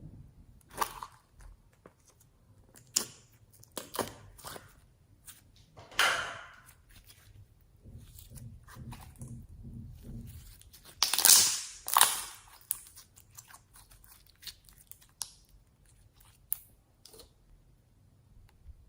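Slime and makeup being handled and mixed by hand: scattered clicks and crackles, with louder crunching bursts about six seconds in and again around eleven to twelve seconds.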